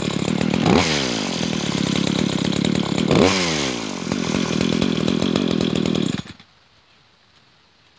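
Red Poulan two-stroke chainsaw running, revved up twice, then shut off abruptly about six seconds in.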